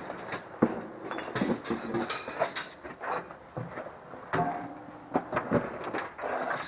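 Irregular rustling with scattered clicks and light knocks, the sound of things being handled and moved about.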